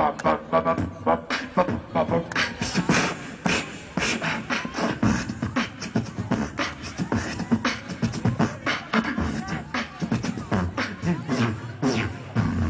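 A beatboxer performing through a microphone and PA system: a fast, steady rhythm of percussive mouth sounds in drum-like strikes, mixed with pitched vocal sounds.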